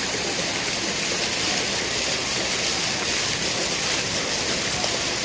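Garden fountain running: a tall jet falling onto a brick basin and a row of short bubbling jets splashing into the pool below, a steady rush of water.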